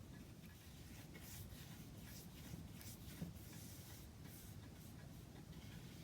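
Faint, irregular scratchy rubbing strokes on the wooden clock case, under a low steady rumble.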